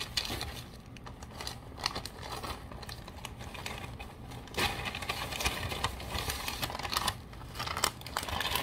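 Newspaper packing paper crinkling and crumpling in someone's hands as it is pulled off and balled up, with some tearing. It rustles irregularly, busier from about halfway through.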